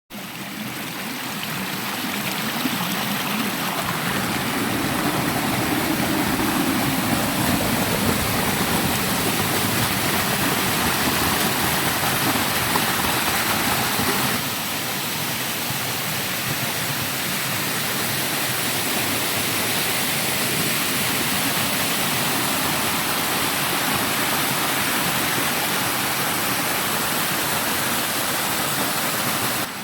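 Small forest waterfall: water splashing and rushing in a steady, even hiss. It drops slightly in level about halfway through.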